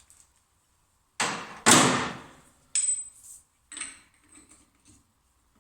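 Heavy steel clanks from a homemade bar tool and breaker bar on a VW Beetle's 36 mm rear axle nut: two loud clanks with a short ring about a second in, then lighter metal clinks and knocks. The nut gives way with little force, a sign it was never properly torqued.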